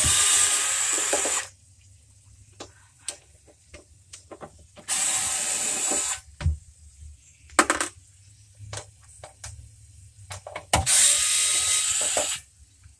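Power drill-driver running in short bursts as it backs out screws, three times, with small clicks and knocks of the screws and the panel being handled between.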